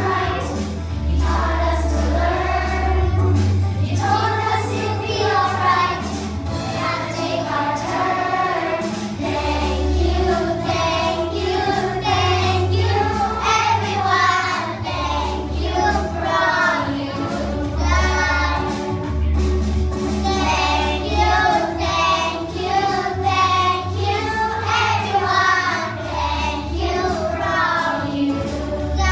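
A group of young children singing a song together, with backing music underneath.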